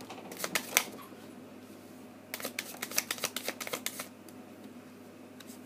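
Oracle cards being handled and shuffled: a few light clicks about half a second in, then a quick run of card flicks lasting about a second and a half in the middle.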